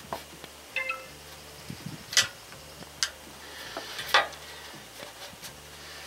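Metal-on-metal clinks and clanks as a steel tool and the hydraulic cylinder's end are worked into the loader arm's mount to line up the pin hole: about five sharp knocks, the loudest about 2 and 4 seconds in, one near the start ringing briefly.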